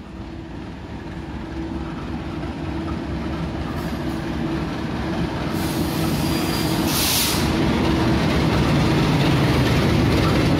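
CC 201 diesel-electric locomotive hauling a passenger train into the station. Its engine and wheels grow steadily louder as it draws near and passes, with a brief hiss about seven seconds in.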